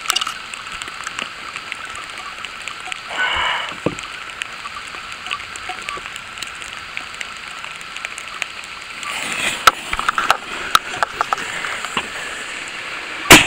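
Steady rain falling, with scattered ticks of drops striking close by. Near the end comes a single loud, sharp bang.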